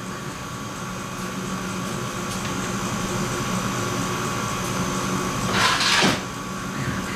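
A steady machine hum with a few fixed tones in it, and a brief louder whoosh that falls in pitch about six seconds in.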